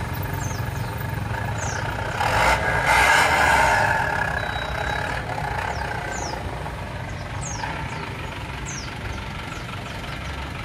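Isuzu Panther's four-cylinder diesel engine running through an aftermarket dual-tip exhaust. It is revved up about two seconds in, held for a couple of seconds, then drops back to a steady idle.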